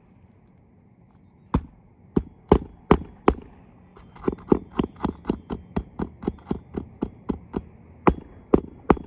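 Hammer driving roofing nails into an asphalt shingle. A few separate blows start about a second and a half in, then comes a quick run of about four taps a second, then a few more single blows near the end.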